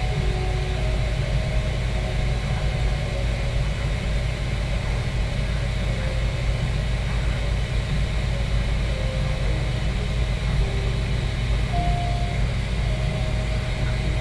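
A steady low hum with an even hiss underneath, and faint piano notes from classical music playing in the room.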